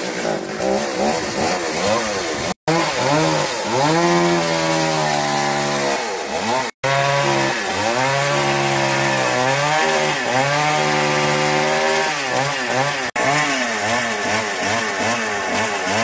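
Two-stroke chainsaw cutting through a fallen tree trunk, its engine pitch sagging under load and rising again as it revs, over and over. The sound drops out briefly three times.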